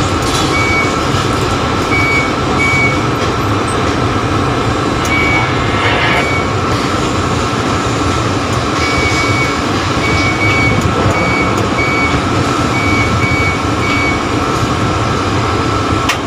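Inside a tower crane's operator cab while the joysticks are worked: a steady mechanical drone from the crane's machinery, with short high electronic beeps sounding in irregular groups.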